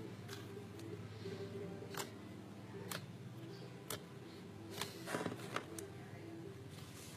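Slime being pressed and poked, giving sharp clicking pops about once a second, with a quick run of clicks around the middle.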